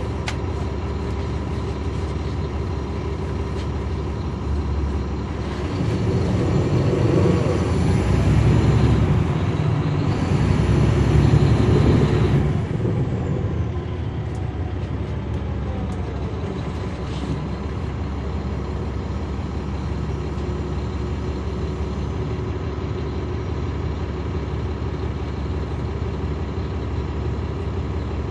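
Caterpillar C13 diesel engine of a NABI 40-foot transit bus heard from the rear seats, running steadily, then about five seconds in pulling harder for some seven seconds, louder, with a high whine that rises, breaks, rises again and falls away as it eases off, before settling back to a steady run.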